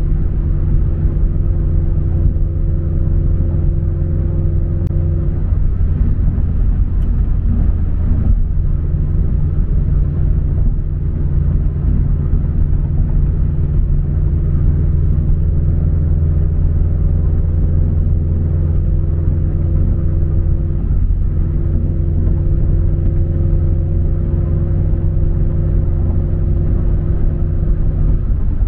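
Subaru BRZ's flat-four engine and MAperformance 3-inch cat-back exhaust heard from inside the cabin while cruising: a steady low rumble. The higher part of the tone drops away briefly twice, a few seconds in and again past the middle, then returns.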